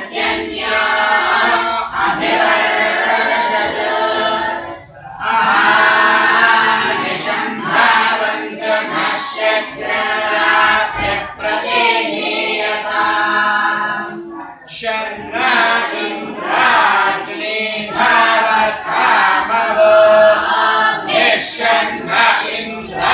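A group of boys chanting Vedic verses in unison, the voices rising and falling in pitch as one. The chant breaks off briefly twice, about five and fifteen seconds in.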